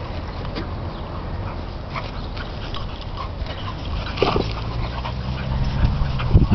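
Dogs playing together, making short, faint yips and whines over a steady low rumble that grows louder toward the end.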